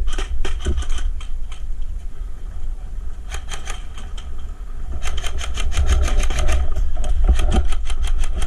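Airsoft guns firing rapid strings of shots: a short burst at the start, a few shots about three seconds in, then a longer fast string from about five seconds in, over a steady low rumble.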